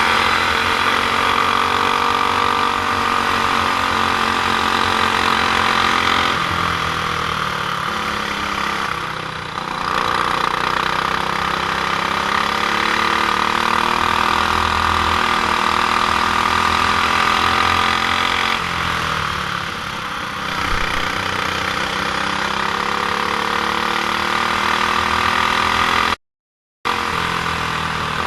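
Stock Honda GX390 single-cylinder four-stroke kart engine running hard at high revs. The revs fall twice and climb again. The sound drops out for a moment near the end.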